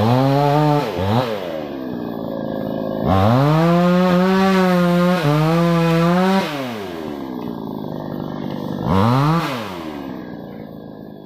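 New West 628 two-stroke chainsaw being revved between spells at idle. There are short throttle bursts at the start and about a second in, a full-throttle run of about three seconds from about three seconds in, and one more quick rev near the end, each falling back to idle.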